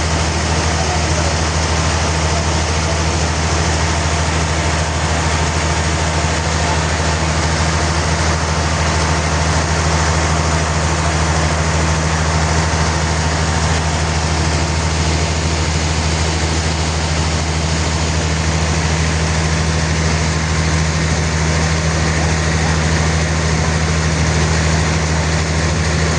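Sawmill machinery running steadily: a constant low hum under an even noise.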